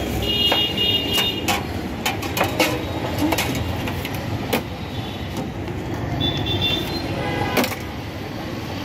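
Busy street traffic noise with short horn toots near the start and about six seconds in, and scattered sharp clinks and knocks of steel utensils and tins at a street-food cart.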